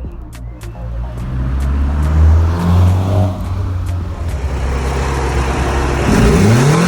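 Mitsubishi Lancer Evolution VII's turbocharged four-cylinder engine being revved, its note swelling and easing. Near the end it is blipped hard, its pitch rising steeply.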